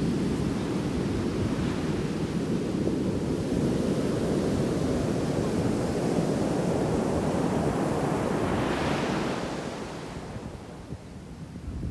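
Ocean surf at a sandy beach, waves crashing in the shore break, with a low rumble of wind on the microphone. A wave breaks and washes up about nine seconds in, then the sound drops away.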